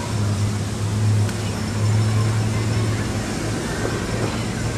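Steady low rumble of city road traffic, with a continuous low engine hum.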